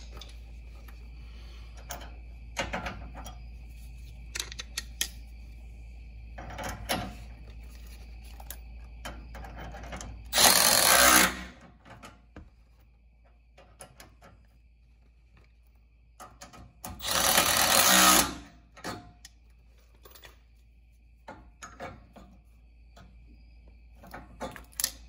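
Cordless power driver with a socket spinning bolts into the truck's front brackets in two loud runs, each a second or so long, about six seconds apart. Short clicks and clinks of tools and metal parts come in between.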